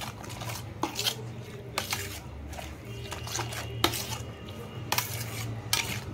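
Steel spoon scraping and clinking against a stainless-steel plate while stirring a thick yogurt and spice mixture, in irregular strokes about once a second.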